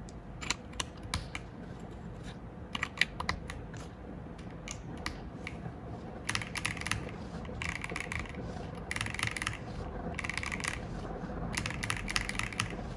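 Keychron V5 Max mechanical keyboard with Jupiter Red linear switches being typed on: scattered single keystrokes at first, then from about six seconds in, fast runs of typing in bursts of about a second, with short gaps between them.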